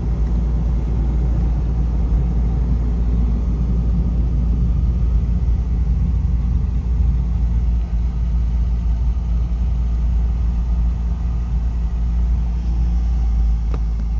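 Car on the move, heard from inside the cabin: a steady low rumble of engine and road noise, with a faint click near the end.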